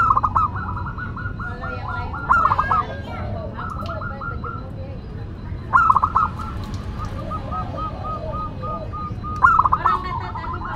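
Zebra dove (perkutut) cooing in four bouts of rapid staccato notes, each opening with a louder burst, about every three seconds, over a steady low background rumble.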